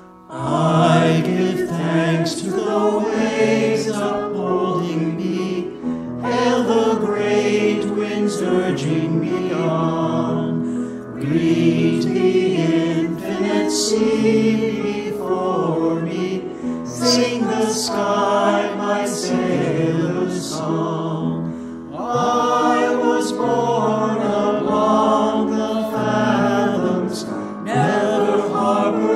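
Mixed choir of men's and women's voices singing a hymn verse in phrases, with an accompaniment track under it; each singer was recorded separately at home on a phone or webcam and the voices layered together.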